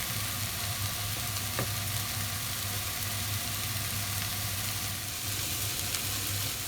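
Mushrooms and onions sizzling in a small cast iron frying pan over a high heat: a steady frying hiss, with a low steady hum underneath and one faint tick about one and a half seconds in.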